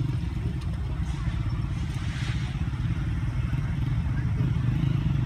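GEU-40 and ZCU-20 diesel-electric locomotives running in a steady low rumble with a fast even pulse as the train departs.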